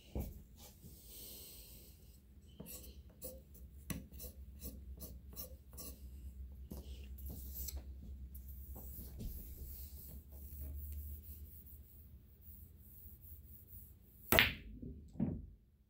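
Super Diamond chalk being rubbed onto a cue tip in many short scraping strokes. Near the end comes a sharp crack, the cue tip striking the cue ball, followed about a second later by a smaller click of the balls meeting.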